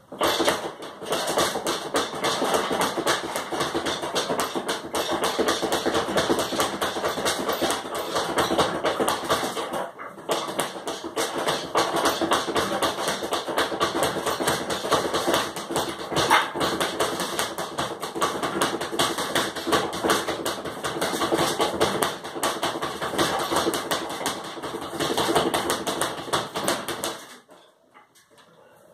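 Speed bag being punched in a fast, continuous rattle of hits against its rebound board, with a brief break about ten seconds in; it stops abruptly shortly before the end.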